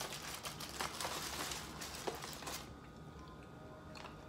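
Paper and foil sandwich wrappers crinkling and rustling as the chicken sandwiches are handled, for about two and a half seconds, then only faint room tone.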